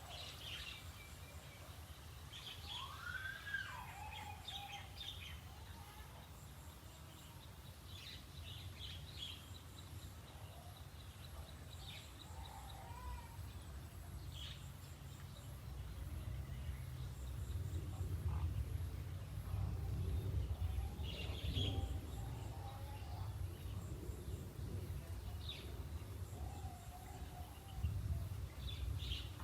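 Birds chirping and calling at scattered moments, with one whistled call that rises and falls about three seconds in. Underneath is a low rumbling noise that grows louder in the second half.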